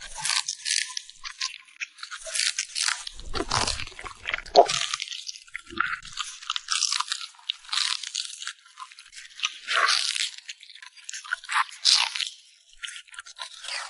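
A French Bulldog crunching and chewing food: irregular crisp crunches in quick succession, with short pauses between bites.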